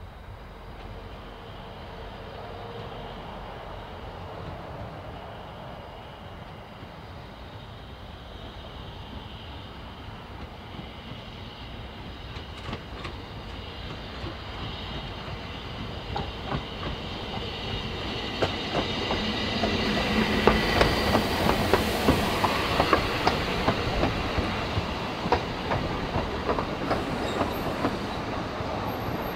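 Ffestiniog Railway narrow-gauge steam train approaching and its coaches rolling past, growing steadily louder and loudest from a little past halfway. The wheels click over the rail joints, with a high squeal from the wheels on the curve.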